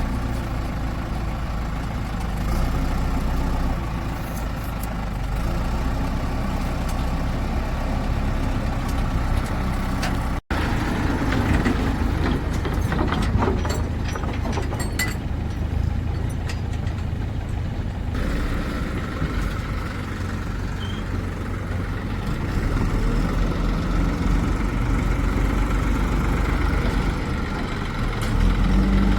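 Diesel engines of a JCB backhoe loader and farm tractors running steadily at low revs, with scattered clicks and knocks after a short break in the sound about a third of the way in.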